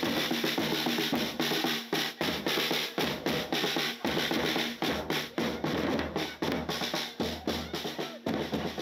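Drumming with rapid snare drum rolls and bass drum beats, many strikes a second.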